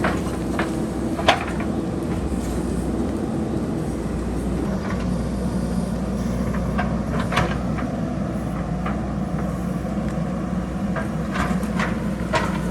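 JCB backhoe loader's diesel engine running steadily while rocks and pebbles clatter down the hillside in scattered sharp knocks, the loudest about a second in.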